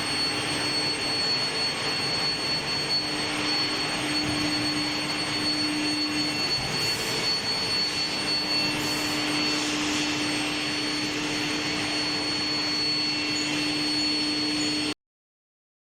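Steel-bar induction hardening line running: a steady hissing noise with a constant high whine and a low hum underneath. It cuts off suddenly near the end.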